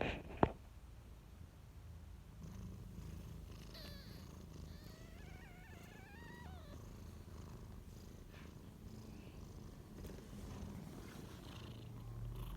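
Cat purring in a steady low rumble, with faint, high, wavering kitten squeaks around the middle. A sharp knock sounds about half a second in.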